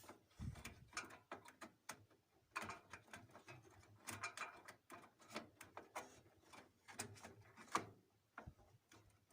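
Faint, irregular clicks, taps and light knocks of hands handling computer hardware while fitting RAM, with one sharper click near the end.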